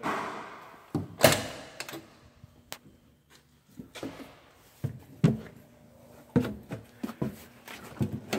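A fire truck's cab door being opened and someone climbing into the crew cab: a sharp bang about a second in is the loudest, followed by scattered knocks and thuds.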